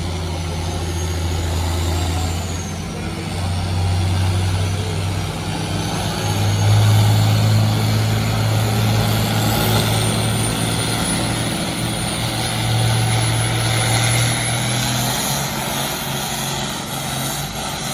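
Farm tractor engine working hard under load as it pulls a weight-transfer sled down the track. It gives a loud steady drone that steps up in pitch twice early on, with a faint high whine climbing slowly in pitch.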